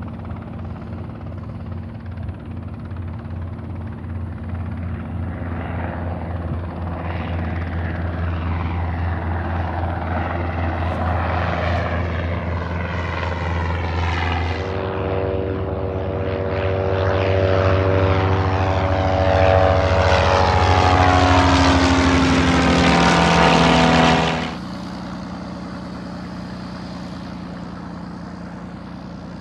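Light propeller airplane's engine at takeoff power, growing steadily louder as the plane comes past on its takeoff run. The sound drops suddenly about 24 seconds in, leaving a quieter steady engine drone.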